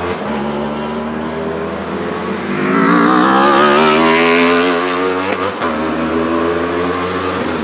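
Wolf GB08 Thunder sport-prototype's Aprilia RSV4 1,000cc V4 engine at high revs, passing close by. It gets loudest about three to five seconds in, climbing in pitch as it accelerates, and its note breaks briefly just after the pass before carrying on at a steadier pitch as it moves away.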